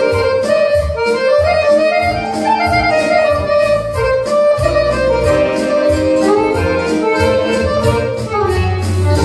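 A button accordion and electronic keyboards play Serbian folk (narodna) music over a steady, quick beat with bass.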